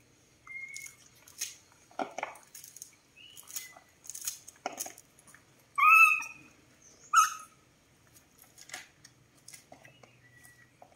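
A baby monkey gives two short, high calls about six and seven seconds in, the first the loudest sound here. Around them, sharp clicks and scrapes of a knife cutting kernels off a fresh corn cob, the kernels dropping into a plastic bowl.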